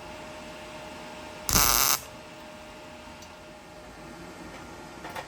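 A single brief MIG tack weld: the arc crackles for about half a second, about a second and a half in, joining a bent steel washer to the others. A faint steady hum lies under it.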